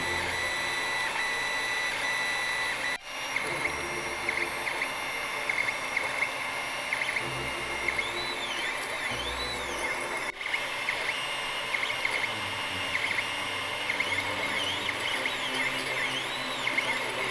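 3D printer's stepper motors whining as the print head moves while printing, the tones sliding up and down in pitch as it changes direction and speed. The sound cuts out briefly twice, about three and ten seconds in.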